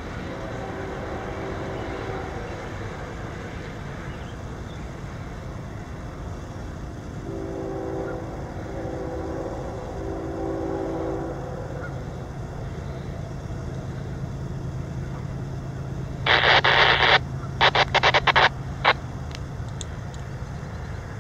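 Distant diesel locomotive horn: a blast that ends about two seconds in, then three blasts in quick succession near the middle, while a low steady rumble sets in. Near the end a few seconds of loud, harsh bursts of noise break in.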